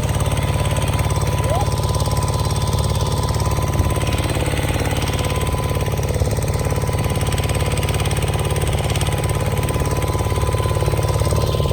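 Heavy machine's engine running steadily, with a fast, even pulsing beat and a faint steady whine above it.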